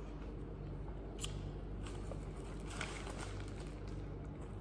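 Faint eating sounds, chewing noodles with a couple of small clicks of mouth and hands, over a steady low hum.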